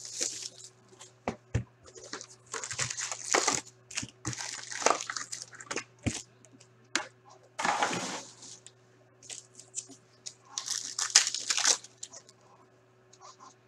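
Foil wrappers of 2015-16 Fleer Showcase hockey card packs being torn open and crinkled by hand, in irregular bursts of rustling with sharp clicks, over a faint steady hum.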